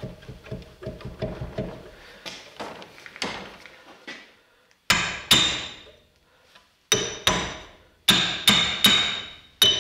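A 3 lb hammer striking a steel axe head to seat it on its wooden handle: about ten sharp, ringing blows in short runs, starting about halfway through. Before the blows come softer knocks as the head is worked onto the handle by hand.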